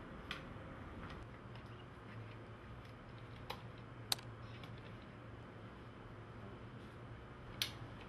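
A handful of sharp plastic clicks over a faint steady low hum, the loudest near the end: a disc being handled in its DVD case and a laptop touchpad being clicked.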